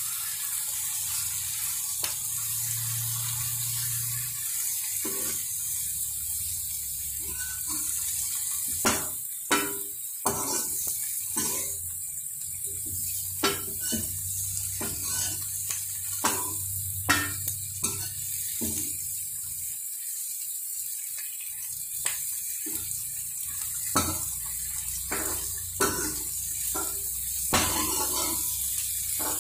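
Steel ladle stirring cauliflower florets frying in oil in a metal wok, with many short clinks and scrapes of the ladle against the pan, mostly from about nine seconds on, over a steady sizzle. A low hum runs underneath.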